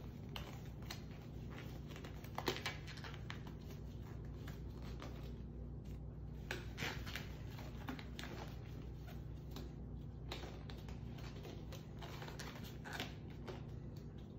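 Disposable exam gloves being pulled onto the hands: scattered light rustles and small snaps of the thin glove material. A steady low hum runs underneath.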